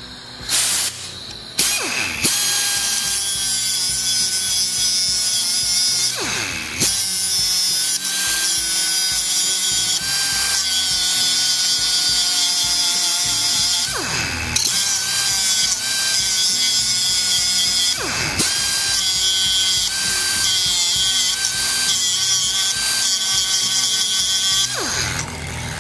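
Pneumatic die grinder with a thin abrasive cut-off wheel running at a steady high whine as it grinds flats onto a snapped steel bolt stub in an aluminum cylinder head. It starts about two seconds in, and its pitch dips briefly several times as the wheel is eased off the metal.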